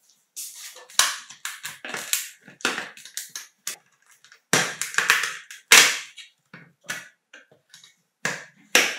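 Plastic shell halves of an Electrolux Ergorapido handheld vacuum being pried apart by hand: a series of irregular sharp plastic snaps and clicks with rattling and scraping in between, the loudest snaps a little past halfway.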